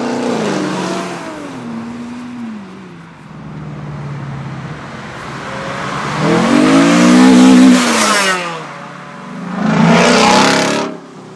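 Cars accelerating past on a wet road, one after another. First a Chevrolet Camaro pulls away, its engine note falling as it moves off. About six seconds in a Renault Clio RS revs up and passes loudly, and near the end a Ford Mustang passes close, its sound cut off abruptly.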